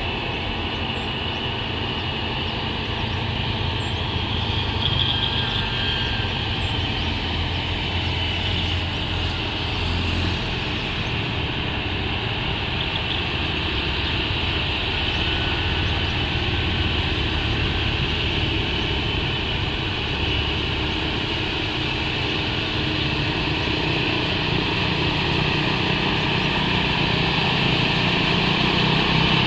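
Mitsubishi Fuso truck's diesel engine pulling steadily up a steep climb under load, a low rumble with a hiss above it, slowly growing louder near the end.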